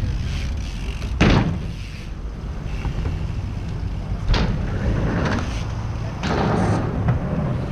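Mountain bike landing on concrete skatepark ramps: two sharp thuds, about a second in and just past four seconds, over a low wind rumble on the microphone.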